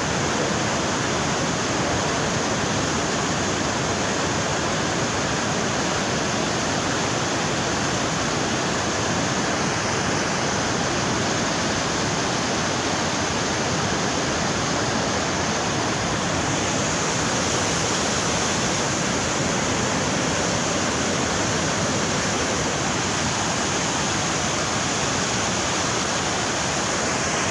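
A river in flood rushing through a concrete-walled channel, a steady unbroken torrent of churning water.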